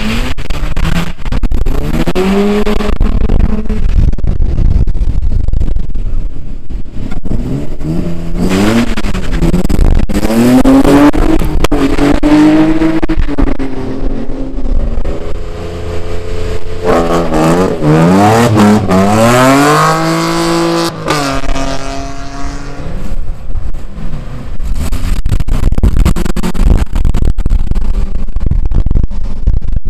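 Racing engines revving hard and passing on a track, their pitch climbing and dropping again and again as the vehicles accelerate, shift and lift off. Several engines can be heard at once in the middle stretch.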